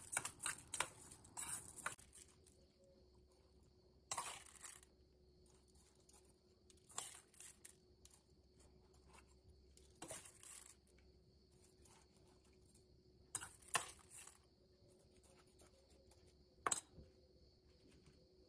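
A metal spoon stirring raw rice in an enamel bowl, scraping and clinking against the bowl in short scattered bursts, with a few sharper clinks among them.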